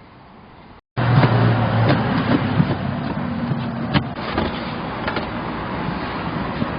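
Engine of a Mechron 2450 utility carrier running steadily, with a few sharp clicks or knocks over it. The sound begins abruptly about a second in, after a faint stretch.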